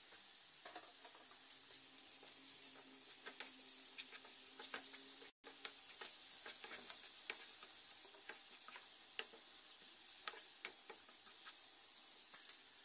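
Faint sizzling of chopped onion frying in oil in a pan, with light scattered clicks of a utensil stirring against the pan.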